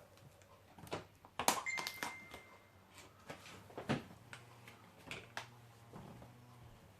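Faint scattered clicks and taps of hands handling a small spider shipping container as it is opened, with a short high squeak about two seconds in.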